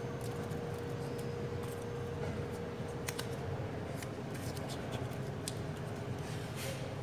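Enamelled copper coil wire being pushed by hand into the paper-lined slots of a gate-motor stator: scattered light scratches and clicks of wire against insulation paper and steel, over a steady low background hum.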